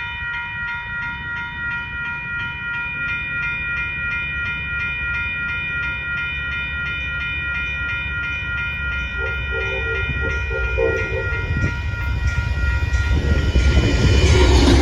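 Amtrak Texas Eagle locomotive's multi-chime air horn sounding one long held chord for about twelve seconds as the train approaches. The horn stops, and the loud low rumble of the passing train builds near the end.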